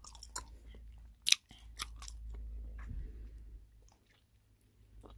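Bubble gum being chewed: irregular wet smacks and clicks of the mouth, the loudest about a second in.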